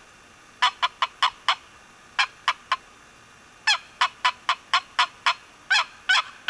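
Wooden box turkey call worked by hand, giving runs of short, sharp yelps: about five quick notes, then three, then a longer run of about seven, and two longer, drawn-out notes near the end.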